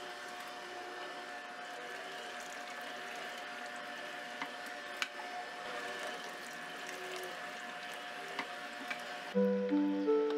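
Hurom slow juicer running with a steady hum as it presses soaked barley malt, its spout pouring a stream of malt liquid into a stainless steel pot, with a few light clicks. Acoustic guitar music comes in near the end.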